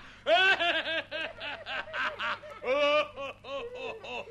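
Voices laughing in quick, high-pitched bursts of short repeated syllables.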